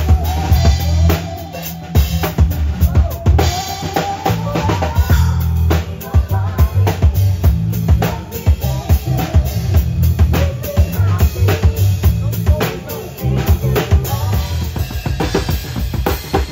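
Live band playing: a drum kit beating steadily with kick and snare, over electric bass and electric guitar.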